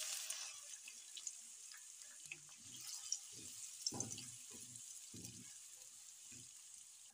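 Chopped onion sizzling in hot oil in a nonstick pan, loudest as it goes in and slowly easing off. A spatula knocks and scrapes against the pan several times as the onion is stirred.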